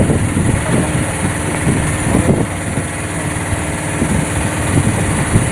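A boat engine running steadily, with faint voices in the background.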